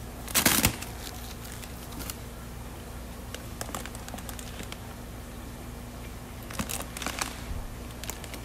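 Water-filled plastic fish-shipping bags crinkling and rustling as they are handled in a styrofoam shipping box, loudest about half a second in and again in a cluster near the end, over a steady low hum.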